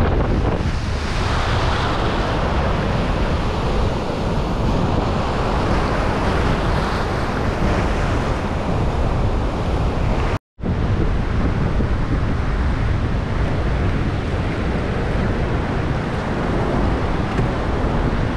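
North Sea surf washing over a sandy beach, with wind rumbling on the microphone. The sound cuts out completely for a split second about ten seconds in.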